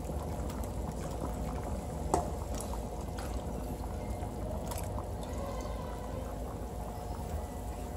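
Sinigang broth at a hard rolling boil in a stainless steel stockpot, bubbling steadily, while sliced eggplant and long green chilies are poured in from another pot, splashing. A sharp clink of metal comes about two seconds in, and another near five.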